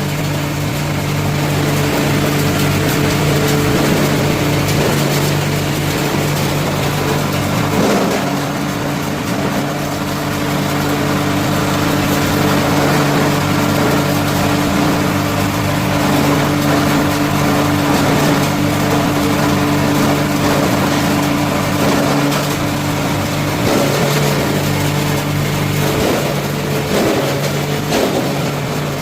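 Electric coconut-husk grinder (G-60 type chopper-mill on a 15 HP three-phase motor) running under load, shredding coconut fibre into cocopeat through an 8 mm screen: a steady hum under a dense rushing noise, with a few irregular knocks near the end.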